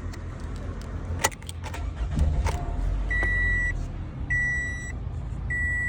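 Toyota car's electronic warning chime beeping three times at one steady pitch, each beep about half a second long and evenly spaced, after a couple of sharp clicks.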